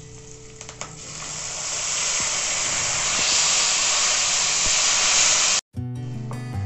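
Tomato paste poured into hot oil in a kadhai, hissing and sizzling loudly as it hits the oil. The sizzle builds about a second in and is cut off sharply near the end, followed by background music.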